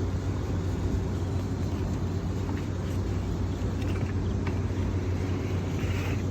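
Steady low machine hum with a constant drone, with a few faint light clicks over it.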